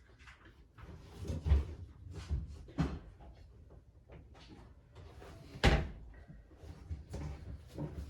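Irregular knocks and clatter of parts and tools being handled on a washing machine during door-seal removal, with one sharp, louder knock a little past halfway.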